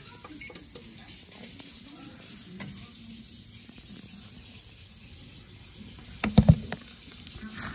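Low steady room hiss with a few light clicks in the first second, then a loud low thump about six and a half seconds in.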